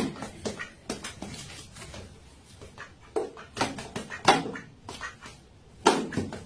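A duck quacking in short separate calls, about six of them, the loudest about four seconds in.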